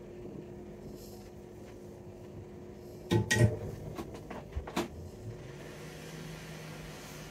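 Tools and small parts handled on a repair bench: a quick cluster of clicks and knocks about three seconds in and a few lighter clicks just before five seconds, over a low steady hum.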